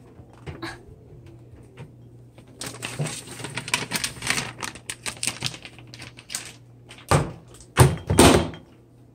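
Plastic bag of mozzarella cheese crinkling and crackling as it is handled inside a microwave, over a low steady hum. Near the end, a thump and then two loud knocks as the microwave door is pushed shut.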